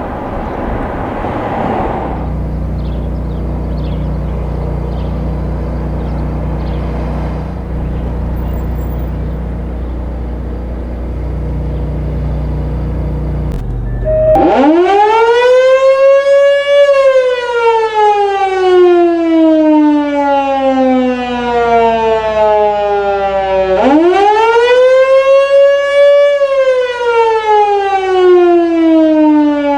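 Federal Signal Canadian Model 2 single-tone fire siren on its test cycle. About halfway in it winds up to a wail within two or three seconds, then coasts slowly down in pitch. Near the end it winds up again and falls once more. Before it starts, a steady low rumble.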